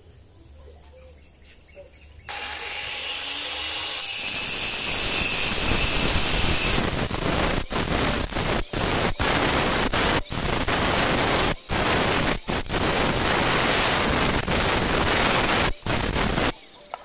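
Electric angle grinder switched on about two seconds in, spinning briefly with a steady whine, then pressed onto a river stone to grind it flat: a loud, harsh, even grinding noise with several brief dips. It stops abruptly shortly before the end.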